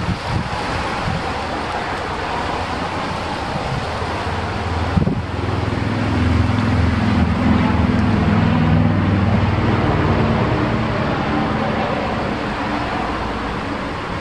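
Wind buffeting the microphone, with the steady hum of a passing engine that comes in about five seconds in, peaks, and fades out near the end.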